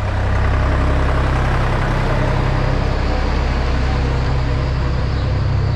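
Heavy diesel farm machinery engine running steadily, a constant low hum under an even mechanical noise.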